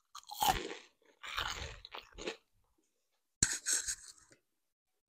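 Crunchy bites and chewing of a crisp fried pumpkin fritter close to the microphone, in three bouts of crunching, the first the loudest.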